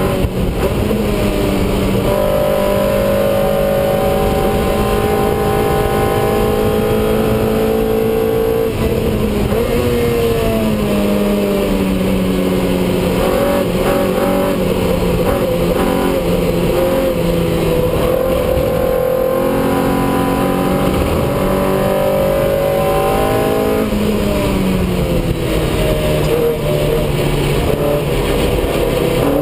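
Lotus race car engine heard from inside the cockpit, running hard on track. Its pitch climbs in long pulls under acceleration and drops about nine seconds in and again near twenty-five seconds as the car slows for corners.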